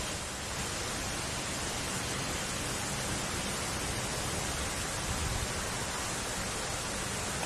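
A steady, even hiss of noise spread across all pitches, with no distinct events.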